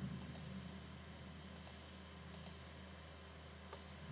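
Computer mouse button clicking, faint: four clicks about a second apart, most heard as a quick double tick of press and release. A low steady hum runs underneath.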